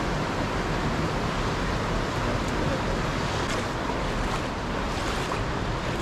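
Fast-flowing mountain stream rushing steadily, a constant hiss of moving water.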